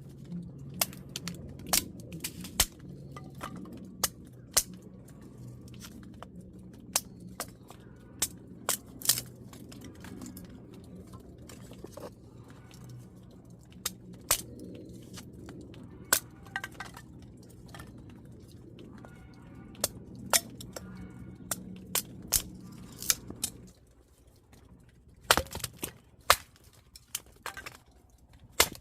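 Repeated sharp clinks and knocks of utensils against dishes and pots, over a steady low hum that cuts off about three-quarters of the way through.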